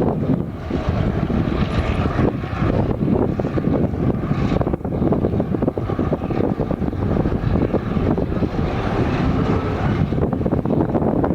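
Freight train pulling out slowly, its G22 diesel locomotive's engine running with a steady, heavy rumble.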